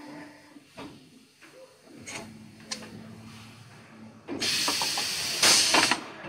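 Injection moulding machine cycling a flip-top cap mould: a low steady hum and a few sharp clicks as the mould opens, then a loud hiss of compressed air for about a second and a half near the end.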